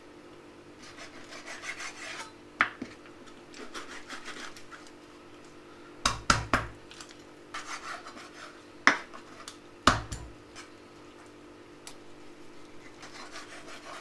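Kitchen knife cutting a raw whole chicken apart at the joints on a bamboo cutting board: scraping and slicing through skin and joint. Sharp knocks of the blade striking the wooden board come once after a couple of seconds, three times in quick succession about six seconds in, and loudest twice around nine and ten seconds.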